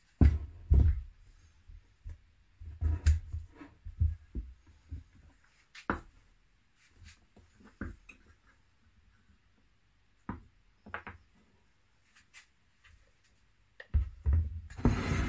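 Bar clamps and small wooden pieces being handled and set down on a wooden workbench: irregular knocks and thumps, loudest in the first second, with a denser cluster of knocks and a rustling hiss near the end.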